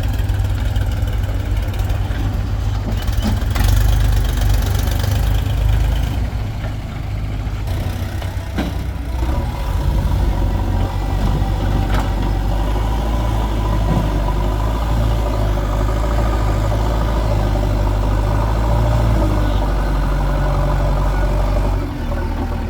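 Diesel engine of heavy earthmoving machinery running steadily, with a few sharp knocks. A higher steady whine joins about nine seconds in, and the engine sound drops near the end.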